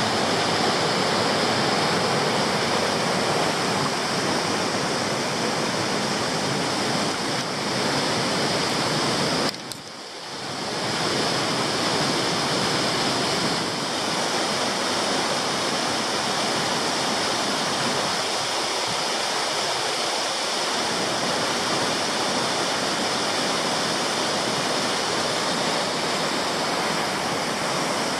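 Arve Falls and the Arve River rapids below it: water rushing steadily over rock, with the sound briefly dropping away about ten seconds in.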